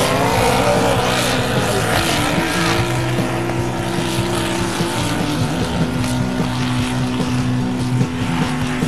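Pulling pickup's engine running at high revs under load as it drags a weight-transfer sled. Its pitch climbs at the start, then holds steady. Around six seconds in, a steadier, lower engine note takes over.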